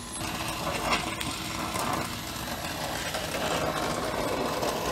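Oxy-acetylene torch flame running steadily with a strong hiss as a leak on a steam coil pipe is brazed, with a couple of sharp clicks about a second in.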